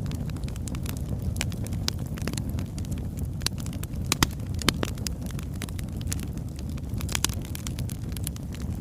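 Birchwood fire burning: a steady low rumble with frequent irregular crackles and sharp pops, a few louder snaps near the middle.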